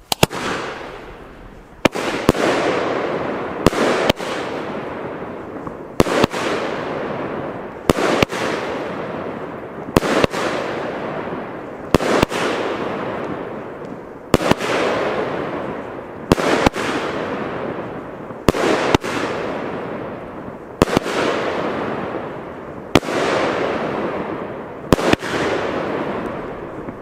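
Argento 'Lavanda' firework battery (cake) firing shot after shot, about one every two seconds, roughly thirteen in all. Each shot is a sharp report, often doubled, followed by a long noisy shower of crackle that fades away before the next one.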